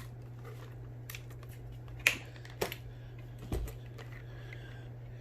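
A few scattered light plastic clicks and taps from the stick vacuum's floor head being handled, the sharpest about two seconds in, over a low steady hum.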